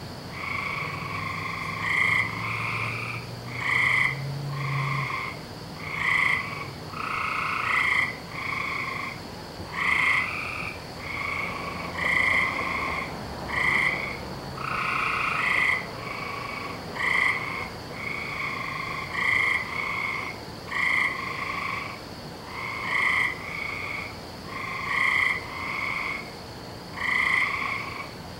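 Frogs calling in chorus at night: short calls, one every second or two, from several frogs overlapping.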